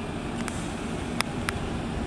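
Heavy diesel construction machine's engine running steadily, with three sharp clicks or clinks over the top.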